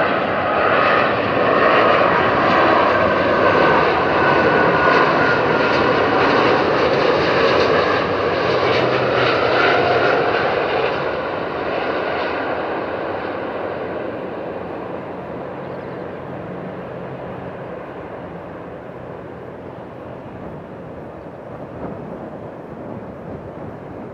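The two Rolls-Royce Trent 700 turbofans of an Airbus A330-200 on final approach: a loud jet rush with a whine that drifts slightly lower in pitch as the airliner passes close, then fades steadily over the second half as it flies away toward touchdown.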